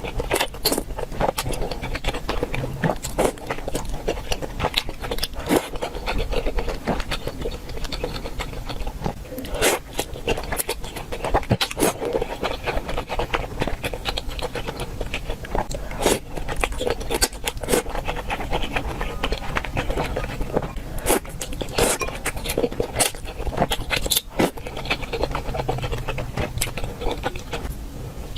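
Close-miked eating: a person chewing and biting food, with many irregular sharp clicks and wet mouth sounds throughout.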